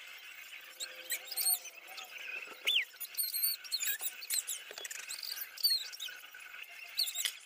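Plastic building bricks from a Ryan's World Build-It kit squeaking and clicking as they are pressed and twisted together by hand: a series of short, high, wavering squeaks with small sharp clicks between them.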